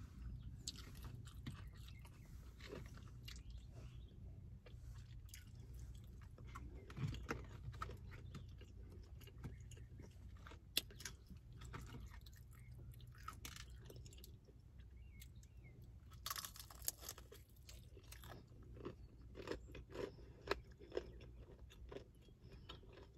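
Close-up chewing of crispy-breaded fried chicken wings: crunching bites and wet mouth and lip-smacking sounds, in scattered clicks and crackles with a denser bout of crunching about two-thirds through.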